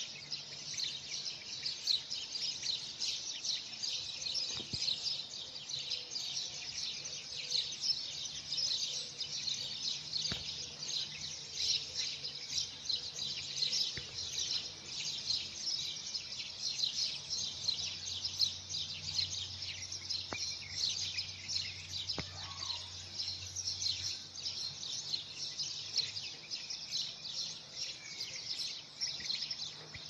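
Many small birds chirping at once in a dense, steady chorus. A faint low hum from distant traffic comes in around the middle and fades a few seconds later.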